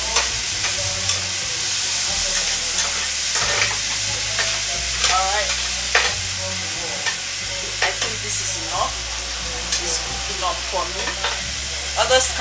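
Vegetables sizzling in a hot frying pan as a spatula stirs them, with repeated scraping strokes of the spatula against the pan over a steady frying hiss.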